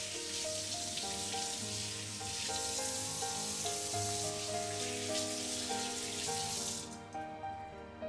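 Kitchen tap running into a stainless steel sink as fish are rinsed under it, a steady hiss that cuts off about seven seconds in when the tap is turned off. Soft background music with a slow melody plays throughout.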